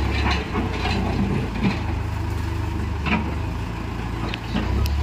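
JCB backhoe loader's diesel engine running under load as it digs out the old road metal, with scattered knocks and scrapes. Its low hum dips briefly about half a second in and again near the end.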